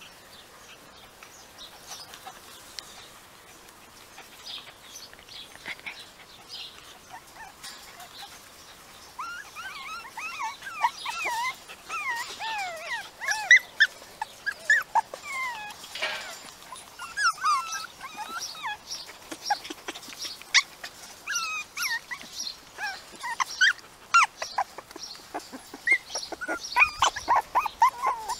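Several young puppies whimpering and yipping: short, high cries that bend up and down in pitch, starting about a third of the way in and coming thick and fast until the end.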